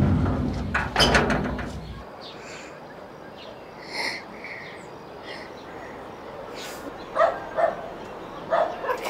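A dog barking, four short barks in two pairs near the end. Before it, a low rumble with a couple of knocks cuts off abruptly about two seconds in, and a quiet outdoor ambience follows.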